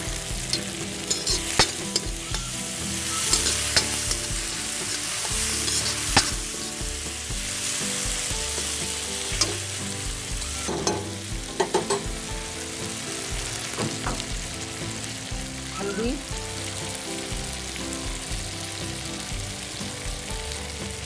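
Chopped tomatoes, onion and chillies sizzling in hot oil in an iron kadhai, with a steady hiss. They are stirred with a steel ladle that clinks against the pan now and then.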